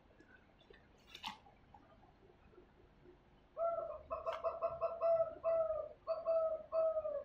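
A bird calling in a quick string of short, level-pitched notes, two to three a second, starting about halfway through and the loudest sound present. Before that there is a single faint knock, about a second in.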